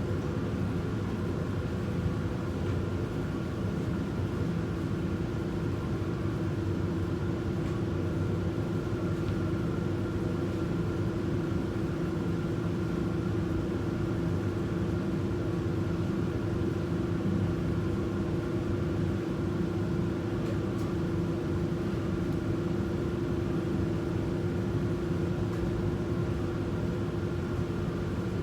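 Steady machine hum of laundry machines running, with a constant mid-pitched tone over a low rumble that does not change.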